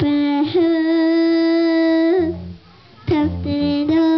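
A small girl singing, holding one long steady note for about two seconds, then after a short pause another shorter held note.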